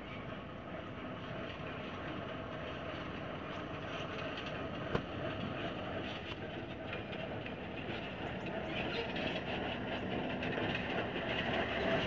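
Mitsubishi Fuso dump truck's diesel engine running as the truck drives up and passes, the rumble growing steadily louder. There is one sharp knock about five seconds in.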